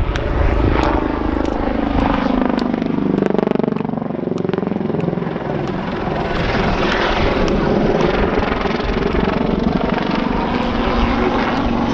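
Westland Lynx helicopter flying display manoeuvres overhead: a continuous rotor chop and turbine sound whose pitch sags and climbs back during the first few seconds as it rolls, then runs on steadily.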